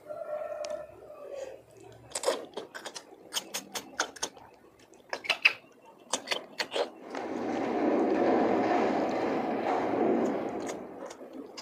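Eating cooked golden apple snails: a run of sharp clicks and sucking sounds as the snails are sucked from their shells, then a louder rushing noise that swells and fades over about three seconds.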